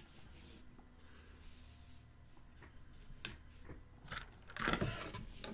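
Light handling noises on a tabletop: a soft rustle, a few scattered clicks and knocks, then a louder cluster of knocking and rattling about four and a half seconds in.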